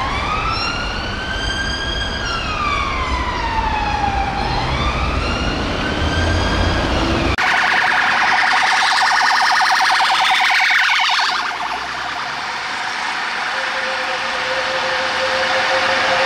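Police car siren on a slow wail, its pitch sweeping up and down about every four to five seconds. After an abrupt cut about seven seconds in, a second police car's siren runs on a fast warble for about four seconds, then drops back to a softer, fainter sound.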